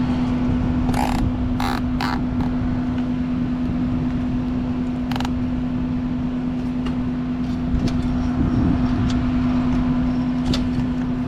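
Steady hum of a neighbouring heat pump's outdoor unit running, its compressor and fan going, with a few short clicks and rattles of handling about one to two seconds in and again around five seconds.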